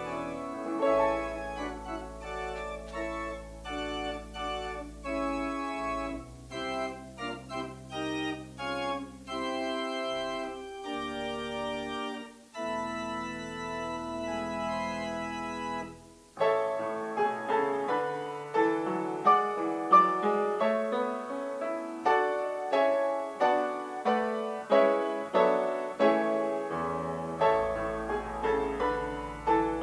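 Closing instrumental music: a pipe organ plays sustained chords over a deep bass, then about halfway through a piano takes over with separate struck notes that die away.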